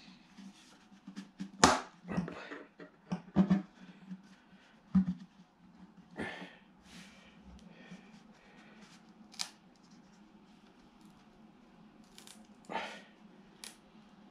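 Sharp, irregular clicks and knocks from hands handling and working on a black box casing, with the loudest snap about two seconds in and a few more spread through, over a faint steady low hum.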